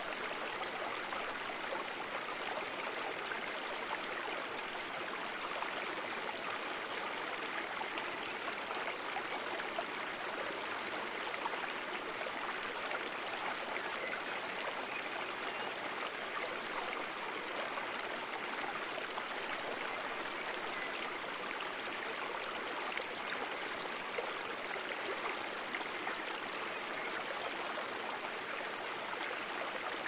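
Running water in a stream, a steady, even rush with no breaks.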